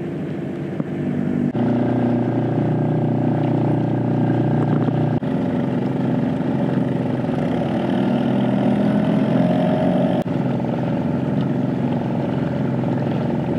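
Small boat motor driving a fishing kayak along at a steady speed: a steady running hum with water rushing past the hull. The tone changes abruptly a few times.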